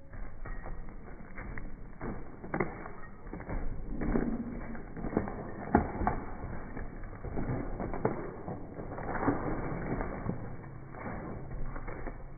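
Small dogs scuffling and play-wrestling on a patio mat: irregular thumps, knocks and scrabbling at a few-per-second pace.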